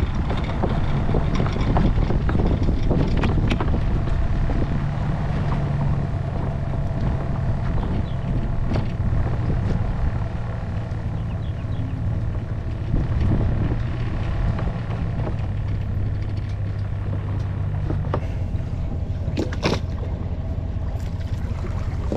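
Road and wind noise from a small boat towed on its trailer: a steady low drone from the tow vehicle with scattered knocks and rattles. The drone drops away about three-quarters of the way through, leaving rougher noise and a few sharp clicks.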